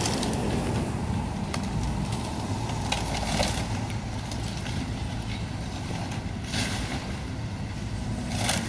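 Demolition excavator's diesel engine running steadily, with scattered sharp cracks and crunches of debris breaking as the machine tears into the building.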